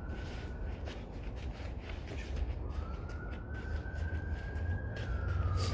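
Siren wailing: a single thin tone that rises slowly twice and then glides down near the end, over a steady low rumble.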